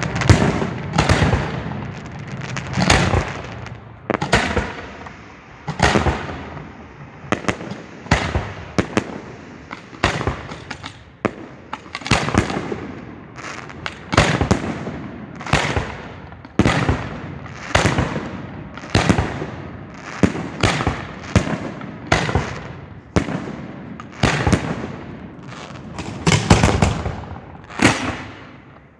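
Professional display fireworks heard close to the firing position: a steady run of sharp bangs about every second, some followed by crackling.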